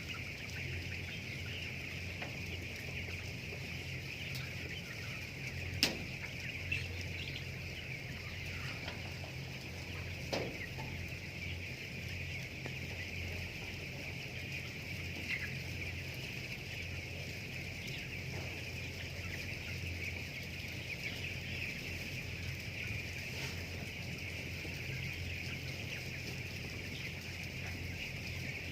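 A flock of broiler chickens calling all at once in a steady, dense chorus over a steady low hum. There is a sharp click about six seconds in.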